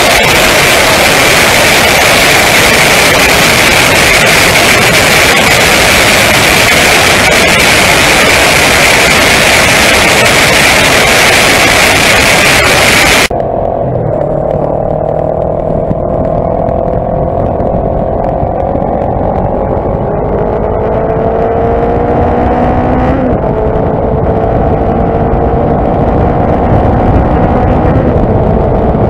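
Kawasaki ER-5 motorbike on the move. First comes a loud rush of wind and road noise. After a sudden change about halfway through, the ER-5's parallel-twin engine is heard accelerating, its pitch climbing steadily and dropping back twice as it shifts up through the gears.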